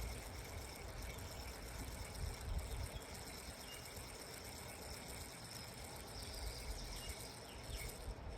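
Outdoor riverside ambience: a steady high chirring of crickets or other insects over an uneven low rumble.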